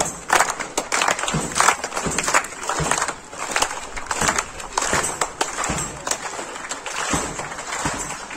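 A group of schoolchildren clapping their hands, uneven and continuous, as a welcome.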